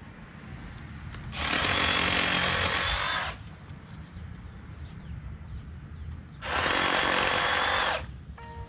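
A battery-powered saw running in two bursts of about two seconds each, the second starting about six and a half seconds in.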